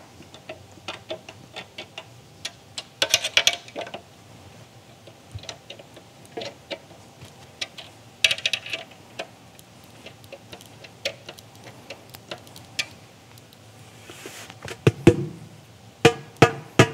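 A metal drum key clicking and ticking against the tension rods of a Ludwig Black Beauty snare drum as the lugs are cranked two full turns each, tightening the bottom head. Near the end come several taps on the very tight head, each ringing with a high pitch as it is checked for even tuning around the lugs.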